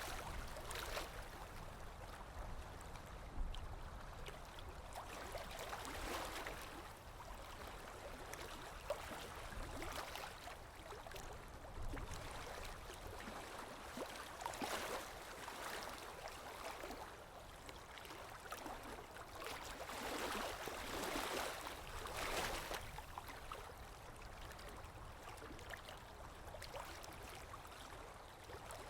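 Sea waves washing in on a shore, the rush of water swelling and fading in irregular surges every few seconds.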